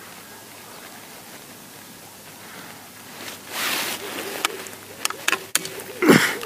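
Walther Century break-barrel .177 spring air rifle being cocked: after a quiet start, a rushing scrape as the barrel goes down, several sharp clicks, and a heavy clunk near the end.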